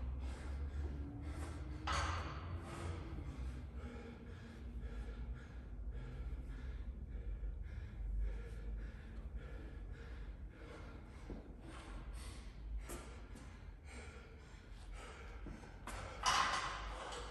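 Hard, gasping breathing of an athlete catching his breath between sets of chest-to-bar pull-ups, with louder rushes of breath about two seconds in and near the end, over a low steady rumble.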